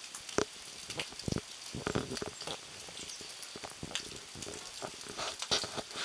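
Sleet pattering and ticking on ice-glazed branches and snow, a steady hiss with many irregular sharp ticks.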